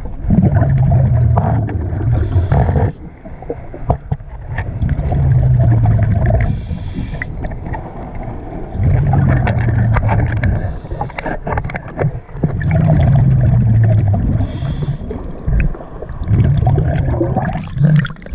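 Diver breathing through a regulator underwater: a short hiss on each inhale, then a low, bubbling exhale of about two seconds. About five breaths come every three to four seconds, with scattered small clicks.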